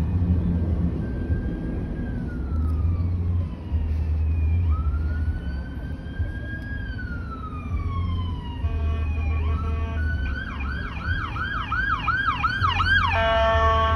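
American Medical Response paramedic ambulance siren approaching: a slow wail rising and falling, switching about two-thirds of the way through to a fast yelp, then a steady blaring tone near the end. A low rumble of engines and traffic runs underneath.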